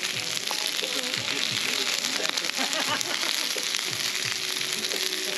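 Shrimp frying in hot oil: a steady sizzle with fine crackles.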